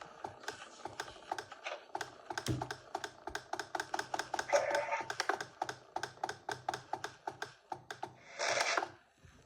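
Rapid, fairly even mechanical clicking, about three or four clicks a second, with a low hum pulsing in step with the clicks. Two short hissy bursts come about halfway through and near the end.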